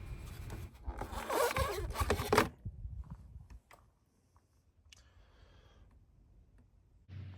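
Plastic air dam panel scraping and rubbing as it is slid free of the engine bay for about two and a half seconds, followed by a few faint clicks and then near silence.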